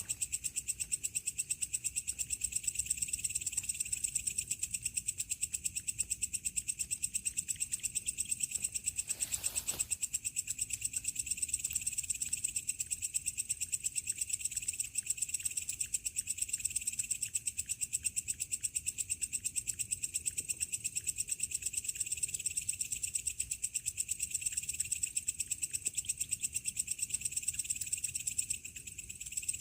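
Night crickets and other insects chirring steadily in a fast, even pulse, at two high pitches at once. A brief burst of noise about nine seconds in.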